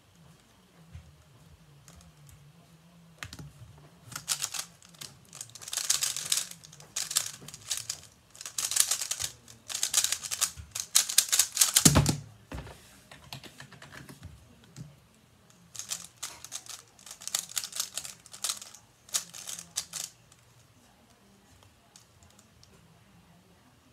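Rapid plastic clicking and clacking of a 3x3 speedcube's layers being turned fast, in dense runs from about three seconds in. About twelve seconds in comes a loud thud as both hands slap down on the stackmat timer to stop it. More runs of fast turning follow later.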